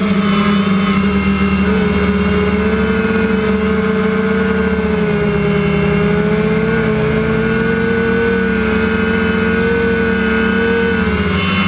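Multicopter's electric motors and propellers whining steadily, heard close up through the aircraft's own camera, several tones wavering slightly in pitch as it holds position in flight.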